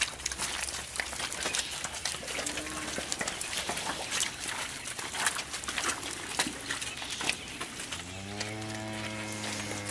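Cattle with scattered knocks and clicks throughout, then one long, low moo starting about eight seconds in.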